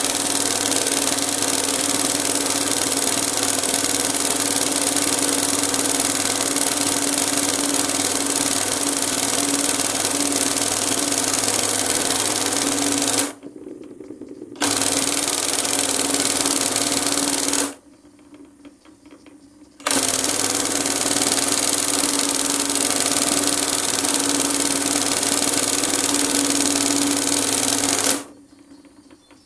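Industrial embroidery machine stitching at a steady fast rate with a constant motor hum. It stops briefly twice as the fabric is repositioned, then stops about a second before the end.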